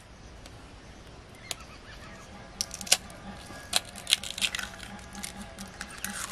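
Eggs tapped and cracked open with the edge of a kitchen knife over a steel bowl: a series of sharp clicks of blade on shell, a few at first and then several a second in the second half.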